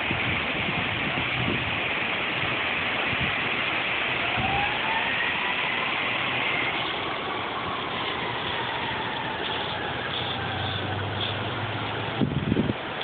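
Steady rushing noise, with a motor vehicle engine humming low under it through the middle, while faint tones rise and fall as if something passes. A few knocks near the end.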